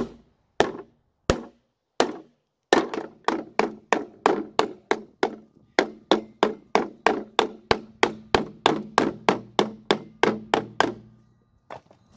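Hammer striking a block of wood to drive a new rubberized grease seal into a wheel hub. A few spaced blows, then a steady run of about three blows a second for some eight seconds, then one or two last strikes near the end.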